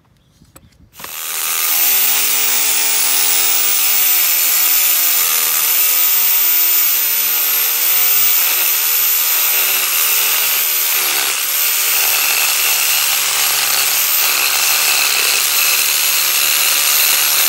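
Reciprocating saw (Sawzall) running and cutting through a steel exhaust pipe; it starts about a second in and then runs steadily.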